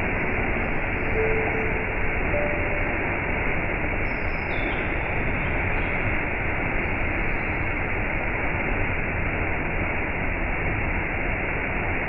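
Small waterfall pouring over a rock ledge into a shallow pool: a steady, even rush of falling water.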